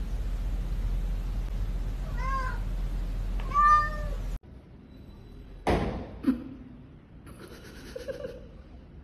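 Domestic cat meowing twice, the second meow louder and sounding like "nooo", over a steady low hum. The hum cuts off about halfway through; a sharp knock and a lighter click follow.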